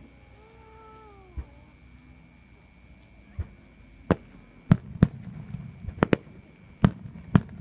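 Aerial fireworks bursting: single sharp bangs at first, then coming quicker from about four seconds in, with a low rumble between them.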